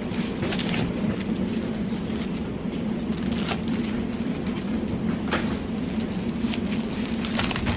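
Steady supermarket hum from cooling and ventilation, with a handful of short rustles and clicks as groceries are handled at a shopping cart.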